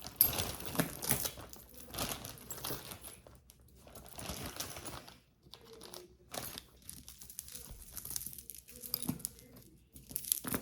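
Packaging crinkling and rustling as it is handled and opened, in uneven bursts that go quieter for a moment about halfway through.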